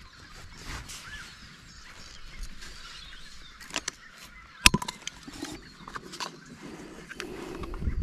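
Hand ratchet pipe cutter squeezed closed on black poly pipe, with scattered clicks and small squeaks and one sharp snap a little under five seconds in, the loudest sound.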